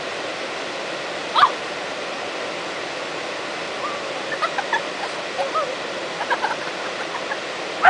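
Waterfall rushing steadily, with a few short calls on top, the loudest about one and a half seconds in.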